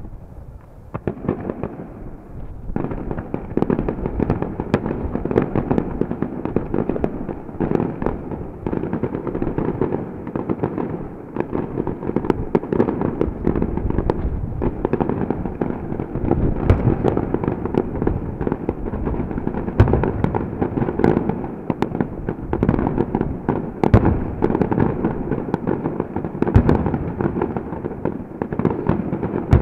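Aerial fireworks display: shells bursting in quick succession, a dense crackle that thickens a few seconds in and carries on, with several louder booms in the second half.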